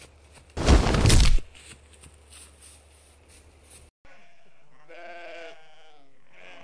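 A loud burst of noise lasting just under a second, then from about four seconds in goats bleating in a series of wavering calls.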